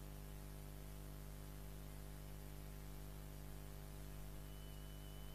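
Steady low electrical hum with a layer of hiss, the recording's background noise. A faint thin high tone comes in near the end.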